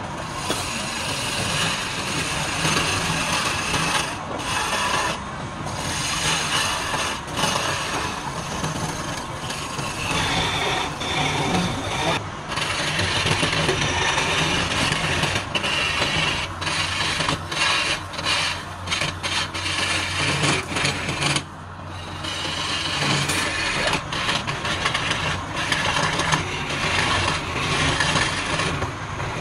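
Wood lathe running, with a tool scraping against the spinning wood. The scraping breaks off for a moment every few seconds as the tool lifts away, while the motor hum carries on underneath.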